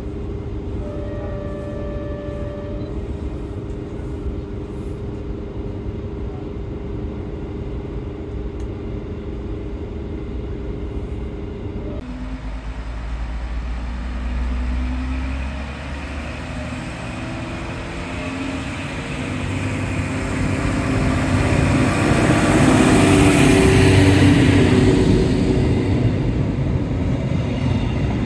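Steady running drone inside a DB Class 628 diesel railcar under way, with a brief tone about a second in. About 12 seconds in the sound changes abruptly to a Class 628 diesel railcar heard from the platform: its diesel engine grows louder as the train comes close, loudest about 24 seconds in, then eases.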